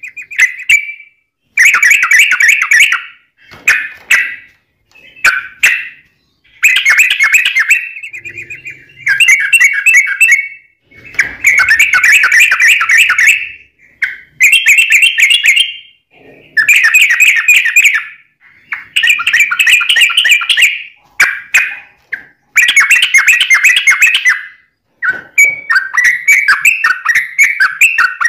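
Yellow-vented bulbul (trucuk) singing a long, rapid, chattering song. It comes in loud bursts of one to two seconds each, with short pauses between them.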